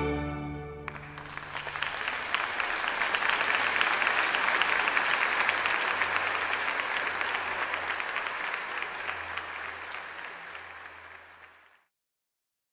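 A string chamber orchestra's last chord dies away, and about a second in an audience breaks into applause that carries on steadily and fades out near the end.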